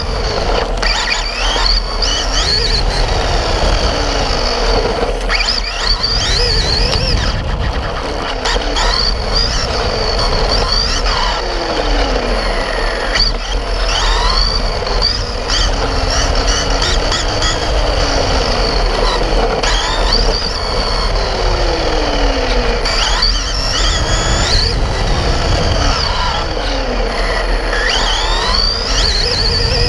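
Onboard sound of an RC buggy driving: its motor and drivetrain whine, rising and falling in pitch again and again as the throttle is worked, over the rough rumble of its tyres on brick paving.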